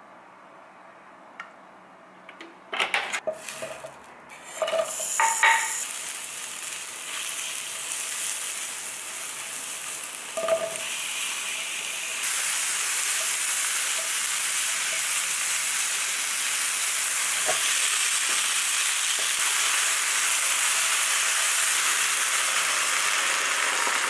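A few clattering knocks about three seconds in, then sliced mushrooms and onions frying in a pan: a steady sizzle that grows louder about halfway through, with a spatula stirring them.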